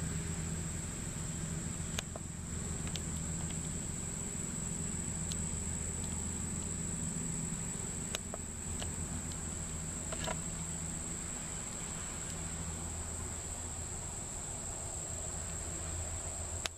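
A steady, high-pitched insect chorus, like crickets, over a low steady hum, with a few faint clicks.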